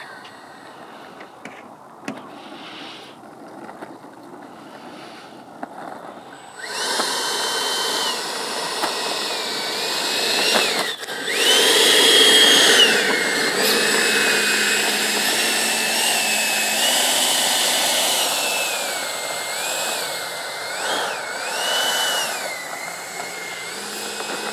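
Electric ducted fan of an FMS F-16 80 mm EDF jet whining over a rush of air. It is faint at first, jumps much louder after about seven seconds, and its pitch rises and falls again and again with the throttle.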